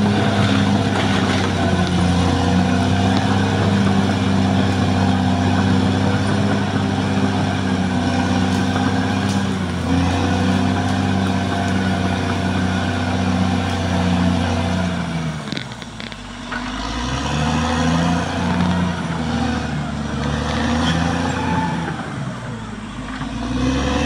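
Caterpillar D6R XL bulldozer's diesel engine running steadily under power as the dozer crawls away. About two-thirds of the way in, the engine note drops and wavers up and down, then rises again near the end.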